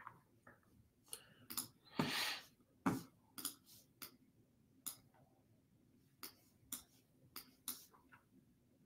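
Faint, sharp clicks of a computer mouse, about a dozen at uneven intervals, with a short breathy rustle about two seconds in.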